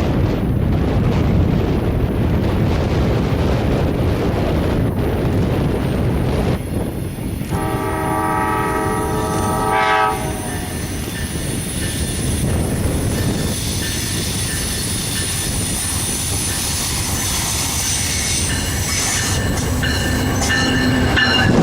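A train running with a steady rumble, its horn sounding a chord of several tones for about two and a half seconds, starting about seven and a half seconds in. High-pitched squealing tones build near the end.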